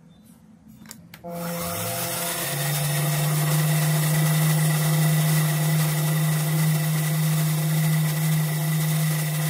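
Desktop mini lathe's electric motor starting about a second in, after a couple of clicks. Its tone rises briefly as it spins up, then it runs at a steady pitch with a hum and a whine.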